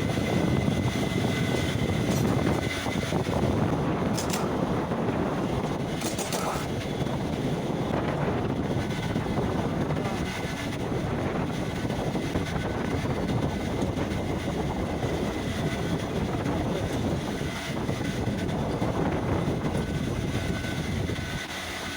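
Royal Enfield Bullet's single-cylinder engine running steadily, with the mechanical clatter of a noisy timing chain.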